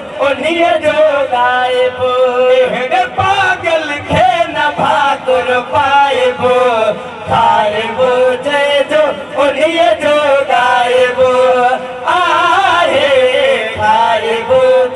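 Two men singing a Sindhi naat, a devotional poem in praise of the Prophet, into microphones in long chant-like phrases, with brief pauses about seven and twelve seconds in.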